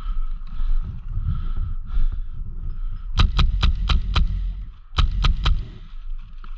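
Airsoft rifle firing a string of five quick shots, then three more after a short pause, each a sharp crack about four a second, over a low rumbling of movement.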